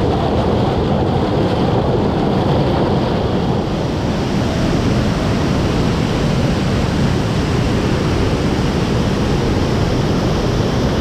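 Kuk-Karauk waterfall: a steady, loud rush of falling water.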